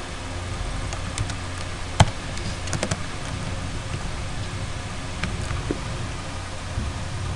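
A few scattered computer keyboard keystrokes and clicks, the sharpest about two seconds in with a quick cluster just after, over a steady low hum.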